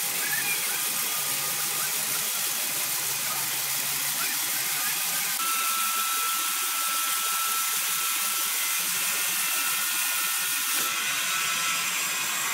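Horizontal band sawmill running its blade through a large log: a steady hiss of the band cutting wood over the motor's running. A thin steady whine joins about five seconds in and drops out near the end.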